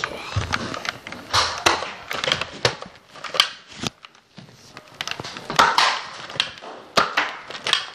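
Handling noise: irregular clicks, knocks and rustling as a handheld camera and a plastic foam-dart blaster are jostled on the move.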